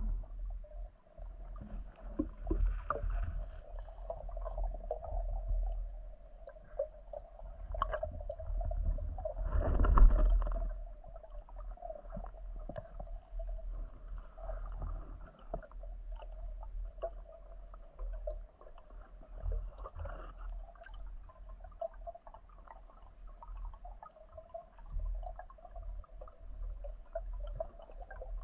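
Muffled underwater sound picked up by a camera in a waterproof housing during a dive: a low rumble with gurgling, scattered small clicks and a steady faint hum, swelling into a louder rush about ten seconds in.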